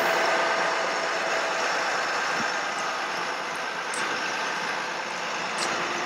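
International 4300 bucket truck running with its PTO engaged: a steady mechanical hum with a faint constant whine.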